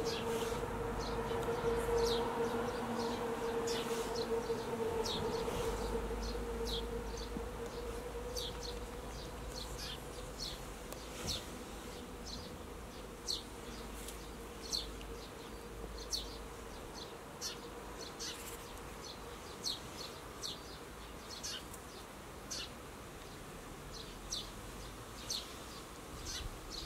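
An insect buzzing with a steady hum near the microphone that fades away over the first several seconds. Short, high scratchy ticks recur every second or so throughout.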